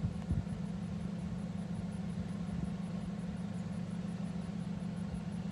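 An engine idling steadily with a low, even hum. There is a brief low bump just after the start.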